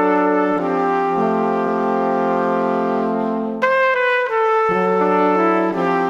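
Background music of long held chords that change every second or two, with a bright new chord coming in about three and a half seconds in.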